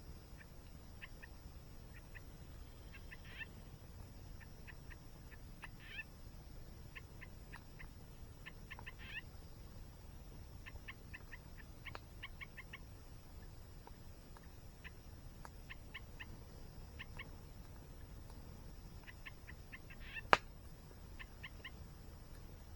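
Campfire crackling: scattered small pops in irregular clusters, with one loud, sharp snap about twenty seconds in.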